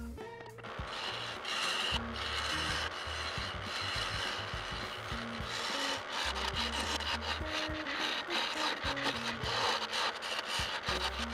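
Turning tool cutting a spinning teak blank on a wood lathe: a continuous scraping hiss of wood being shaved, with quiet background music and a stepping bass line underneath.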